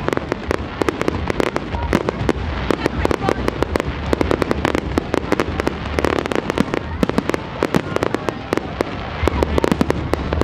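Fireworks display: a rapid, continuous barrage of aerial shell bursts and crackling bangs, many each second.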